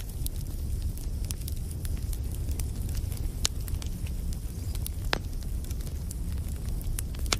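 Burning wood fire crackling: a steady low rumble of flames with scattered sharp pops of the wood, two of them louder.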